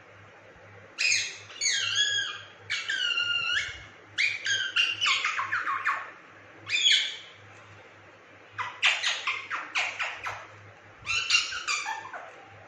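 Indian ringneck parakeet squawking and chattering in several bouts of sharp, pitch-bending calls with short pauses between them.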